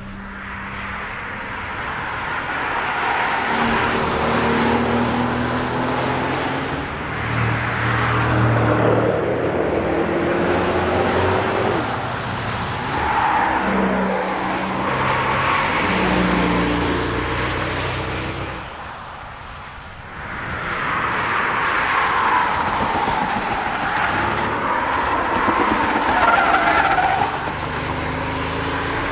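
Camouflaged Mercedes-Benz S-Class Coupe prototype driven hard on a circuit: the engine climbs in pitch and drops sharply several times as it accelerates through the gears, with tyre squeal in the corners. The sound dips briefly about two-thirds of the way through before the car is heard again.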